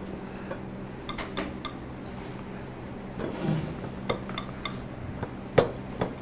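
Scattered metallic clicks and clinks of tools and small parts being handled on a worktable, with the loudest a sharp knock a little after halfway, over a steady low hum.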